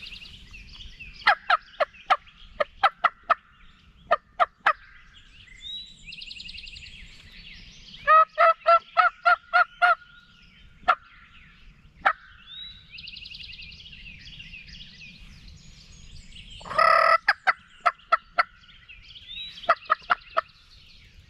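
Turkey yelps: runs of sharp, loud, pitched notes, about ten in the first few seconds, an evenly spaced run of eight in the middle, and a louder burst with a few more near the end. Songbirds sing faintly in the gaps.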